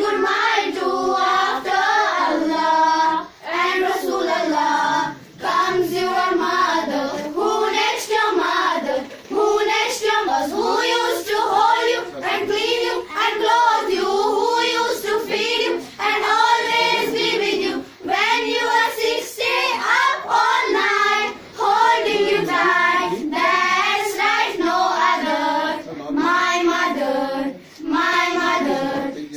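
A group of young girls singing a song in unison, with hand claps.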